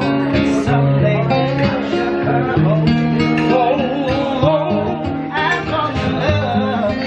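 Waiters' men's voices singing live, with vibrato, to an acoustic guitar.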